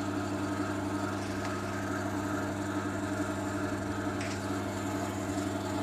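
Steady low machine hum, even and unchanging in pitch.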